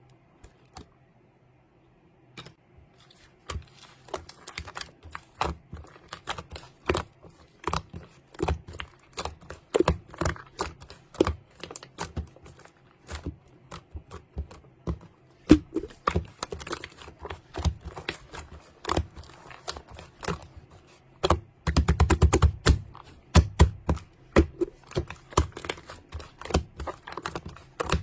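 A long run of quick, irregular clicks and taps, starting a couple of seconds in and growing denser and louder a little past the middle.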